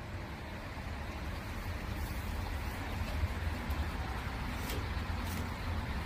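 Steady low outdoor background rumble with no barking, and a couple of faint ticks near the end.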